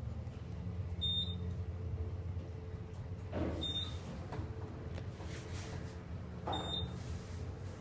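Otis Series 7 elevator cab riding, with a steady low hum and three short high beeps spaced a few seconds apart.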